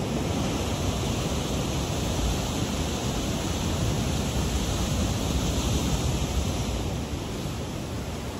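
Ocean surf breaking and washing against a rocky shoreline: a steady rush of water noise with a low rumble, likely with wind on the microphone.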